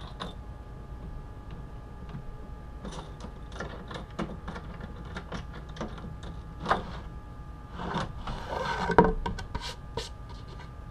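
Handling noise as a clamped wooden sign blank is freed and lifted off a CNC router's slatted wooden bed: scattered clicks and light knocks, then a scraping rush about eight seconds in that ends in a sharp knock.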